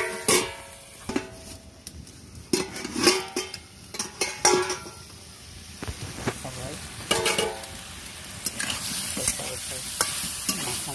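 Metal lid and metal spatula clanking with a ringing tone against a kadai: one clank right at the start, a run of clanks a few seconds in and another about seven seconds in. Between them the vegetables sizzle in the pan and the spatula scrapes as they are stirred.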